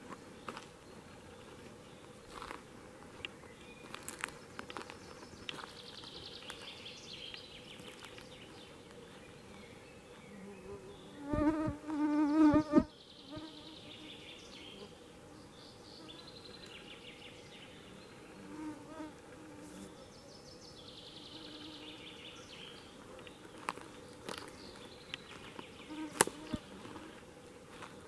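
A flying insect buzzes loudly close past the microphone for about a second and a half near the middle. Around it a songbird sings short high phrases every several seconds, with a few faint scattered clicks.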